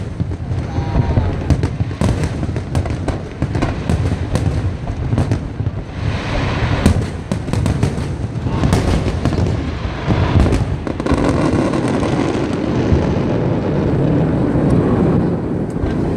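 Large aerial fireworks display: a rapid barrage of shell bursts and crackling over continuous deep booming.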